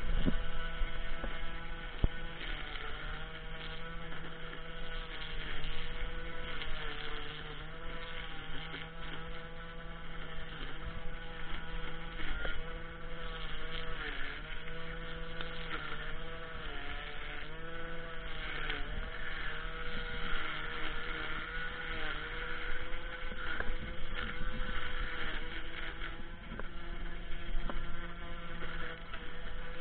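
String trimmer running steadily, its motor whirring, with the pitch sagging and recovering again and again as the spinning line cuts into weeds.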